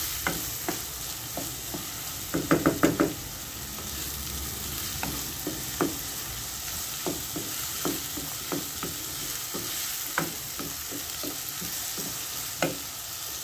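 Diced onions sizzling in hot oil in a non-stick pot as they sauté, stirred with a wooden spoon that scrapes and knocks against the pot. A quick run of louder spoon knocks comes about two and a half seconds in.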